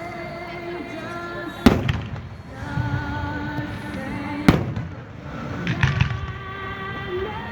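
Fireworks shells bursting in sharp bangs: one about a second and a half in, one past the middle, and a quick pair a little later. Music with long held notes plays underneath.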